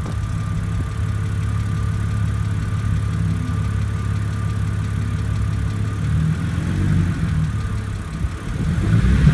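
BMW N52 straight-six idling steadily from a cold start, with a light ticking from the valvetrain that the owner takes for hydraulic lifter tick, still there on oil changed 200 miles earlier.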